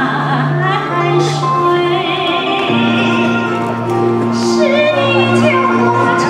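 A woman singing into a microphone, holding long notes with vibrato, over a sustained instrumental accompaniment whose chord changes about three seconds in.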